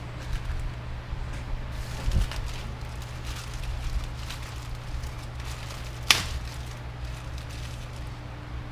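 Metal suspension-arm parts and hand tools being handled during assembly of heim-joint A-arms: scattered light clicks and knocks, a dull thump about two seconds in and one sharp click about six seconds in, over a steady low hum.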